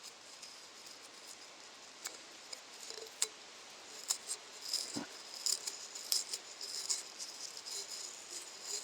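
Light clicking and rattling from a ceramic pot being handled, with scattered sharp ticks, over faint crickets chirping.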